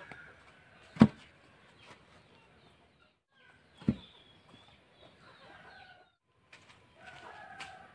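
Heavy wooden post dropped into a dug hole in the earth: a dull thud about a second in, and a second, softer thud about three seconds later. Chickens cluck in the background between the thuds and near the end.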